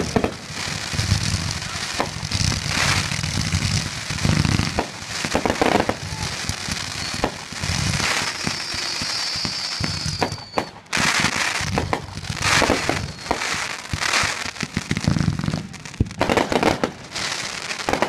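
Fireworks firing in rapid succession: repeated launch thumps and bursting shots with crackle. A brief whistle falling in pitch comes about eight seconds in.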